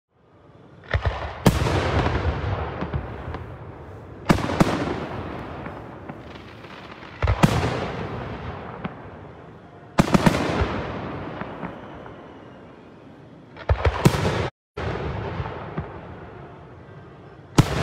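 Aerial firework shells bursting, a sharp bang every three seconds or so, some in quick pairs. Each bang is followed by a long, fading rumble and crackle. The sound cuts out for a moment about three-quarters of the way through.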